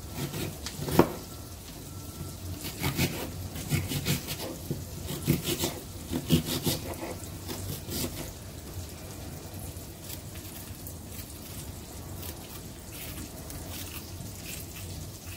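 Garlic butter sizzling and crackling in a frying pan with scallion and thyme as it melts. Irregular scraping and knocking from handling comes over the first half, then the crackle goes on fainter.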